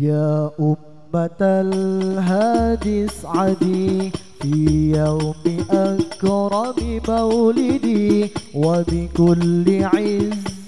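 Sholawat devotional song sung to banjari hadrah frame drums (rebana). The singing starts suddenly, over quick hand strokes on the drums and a deep bass drum stroke about every two seconds.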